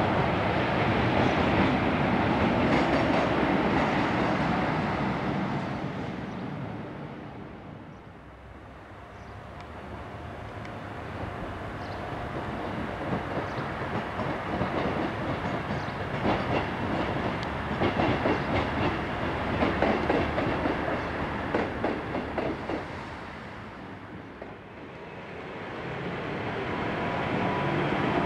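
Class 47 diesel locomotive running past, its engine noise fading away after a few seconds. Then a multiple unit passes, its wheels clicking rapidly over the rail joints, and near the end another train comes close.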